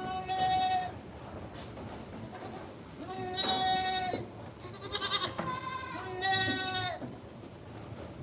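Young goat kids bleating: four separate calls, each under a second long, the third with a wavering, trembling pitch.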